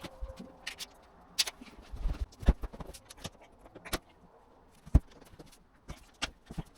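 Irregular knocks and clicks of laminate floorboards being handled, unclipped and set down, a few sharp taps spread several seconds apart.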